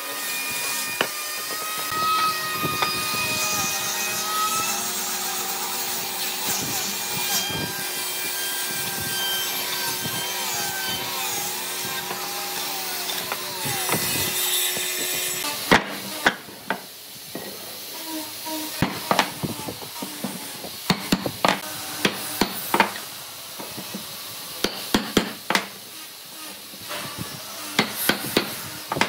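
Angle grinder with a sanding disc running against pine boards, a steady motor whine whose pitch wavers as the disc is pressed and moved along the wood. It stops suddenly about halfway, and the rest is a series of irregular sharp knocks of a mallet tapping pine parts together.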